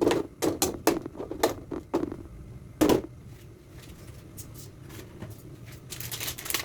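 A cooking utensil knocking and scraping in a pot as ingredients are stirred together: irregular clicks and knocks, with one louder knock about three seconds in and a few more clicks near the end.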